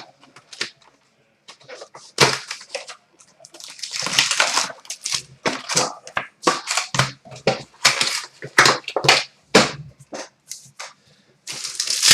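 Plastic and foil wrapping on trading card boxes and packs crinkling and tearing as they are opened: a run of irregular, sharp crackles.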